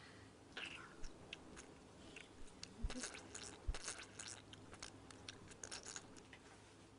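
Faint rustling and crackling of clothing being handled as jeans are pulled up the legs, with scattered light clicks and a couple of soft thumps.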